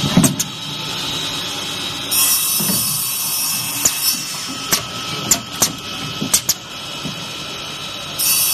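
Automatic copper tube cutting machine running its cycle: a steady motor hum with repeated sharp clicks and knocks from the feed and clamping mechanism. A high hiss starts about two seconds in and lasts a couple of seconds, and another starts near the end.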